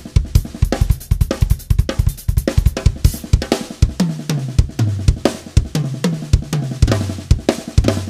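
Drum kit played fast, with dense snare, bass drum and cymbal strokes. From about halfway there is a run of lower strokes, each dropping slightly in pitch.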